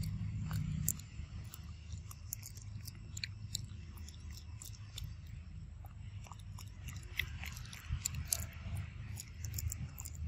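Macaque chewing peanuts close up: irregular small crunches and clicks, over a low steady rumble.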